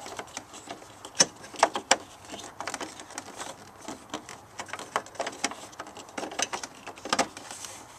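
Irregular plastic clicks, taps and light scraping as a turn-signal bulb socket is worked into its hole in the back of a car's headlight housing.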